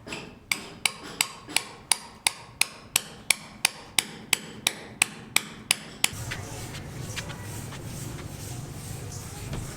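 Hammer blows struck in a fast, even rhythm, about three a second, around sixteen in all, on a house building site. About six seconds in they stop and a steady low background hum takes over.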